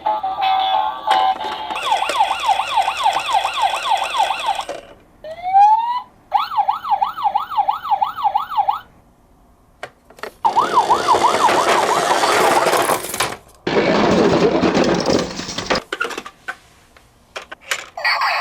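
Electronic emergency-vehicle yelp siren, a fast rise-and-fall wail repeating about three to four times a second, cutting off and restarting several times, with a short rising whoop before one restart. Past the middle a noisy clatter joins the siren and runs on for about two seconds after the siren stops, followed by a few sharp clicks near the end.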